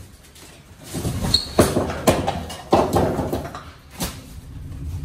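Loaded wire-mesh roll cages (rolltainers) being pulled and rolled across a trailer floor, their metal frames and casters rattling and clanking with several sharp knocks, starting about a second in and dying down near the end.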